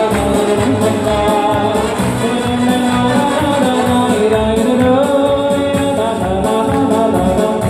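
Wedding band playing a Hasidic dance tune with a singer over a steady beat.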